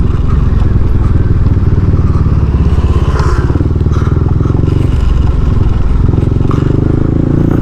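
Motorcycle engine running steadily at low revs while being ridden, with a few brief knocks and rattles.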